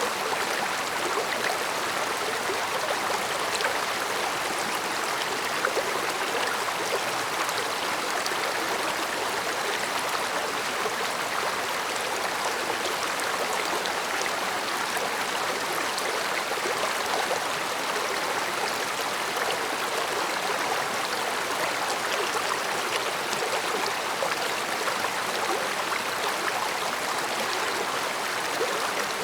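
Mountain stream flowing over rocks: a steady soft rush of water with fine trickling and gurgling.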